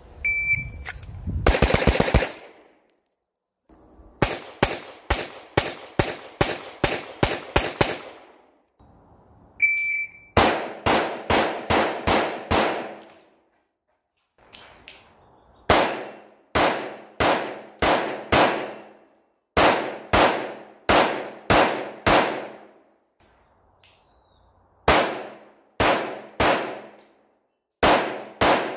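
Strings of rapid pistol shots from a ported CZ Shadow 2, each run of several shots fired in quick succession with short pauses between strings. Twice a shot timer's short high beep starts a string, near the start and again about ten seconds in.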